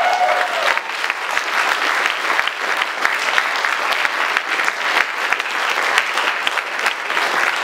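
Audience applauding, many hands clapping at a steady level throughout. A drawn-out voice trails off in the first second.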